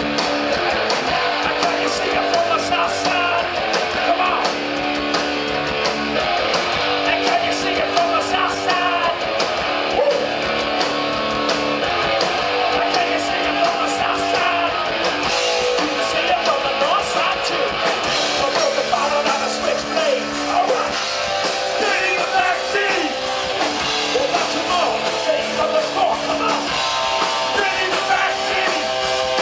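Live rock band playing: strummed guitars over bass and drums, with singing at times.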